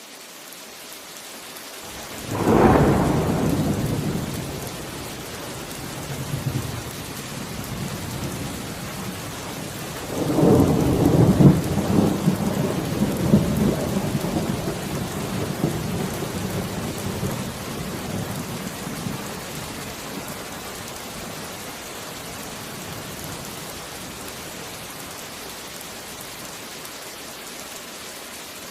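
Steady rain with thunder: a sudden thunderclap about two seconds in that rumbles away over a few seconds, then a longer rolling rumble of thunder starting about ten seconds in that slowly dies away over the next ten seconds, leaving the rain alone.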